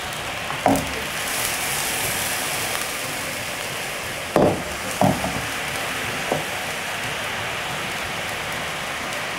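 Sugar-and-water syrup boiling in a frying pan over a gas burner, a steady hiss of bubbling. The water is cooking off before the sugar caramelizes. The pan knocks against the burner grate a few times as it is swirled: once near the start, then three times in the middle.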